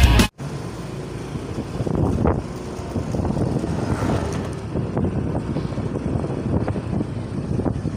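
Street traffic noise with motorcycle engines running nearby, and wind buffeting the microphone of a camera moving along the road.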